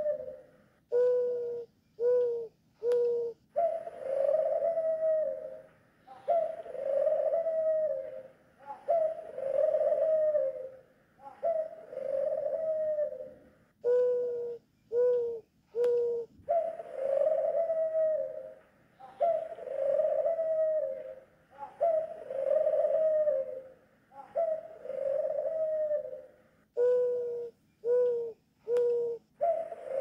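A pigeon or dove cooing over and over: runs of three short, low coos alternate with longer, drawn-out coos of about two seconds each.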